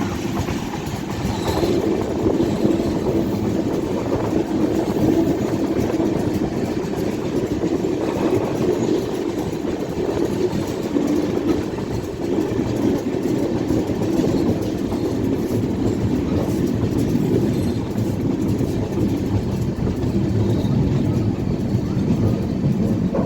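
An LHB-coach passenger train, hauled by an electric WAP-7 locomotive, rolling past at steady speed, its wheels running on the rails with a continuous rumble and some clickety-clack.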